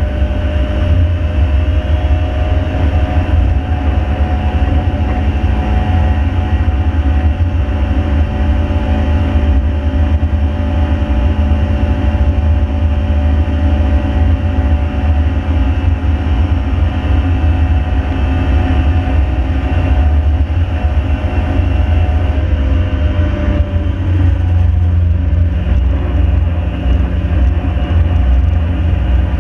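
Ford Fiesta's 1.7 Puma four-cylinder engine running hard at track speed over heavy low road and wind rumble. The engine note holds fairly steady, then changes abruptly about 24 seconds in.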